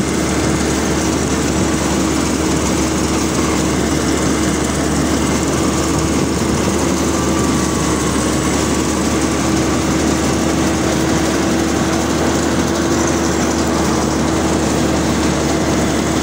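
Rice combine harvester running steadily while harvesting ripe paddy rice: engine and threshing machinery making a constant loud drone with a steady hum, heard up close from the operator's open seat.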